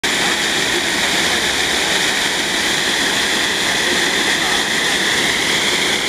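Water pouring over a low weir spillway in a steady, unbroken rush.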